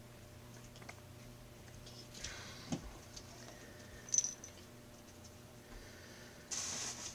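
Faint sounds of a kitten playing on carpet: a short rustle ending in a click, a small sharp click, then a louder rustle near the end, over a low steady room hum.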